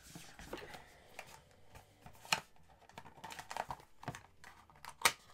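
Cardboard advent calendar door and the product packaging inside being opened and handled: rustling with scattered sharp clicks and taps, the sharpest about two seconds in and near the end.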